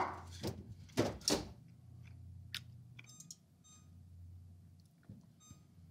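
Oven being set to broil: a few faint clicks and knocks, then faint short electronic beeps a little past halfway, over quiet room tone.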